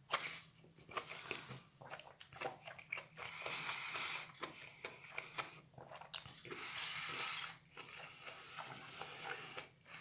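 A person chewing microwaved mushrooms, with many small wet clicks and smacks from the mouth and two longer hissing stretches partway through.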